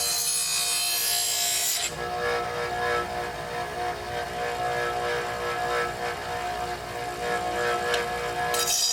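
Electric grinder running with a steady whine while a dull steel lawn mower blade edge is ground against it: a harsh grinding hiss for the first two seconds and again near the end, with the motor running on its own in between.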